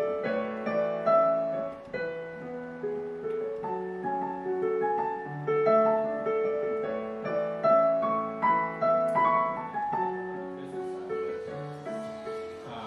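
Digital keyboard played in a piano voice: slow, held notes and chords, fading toward the end.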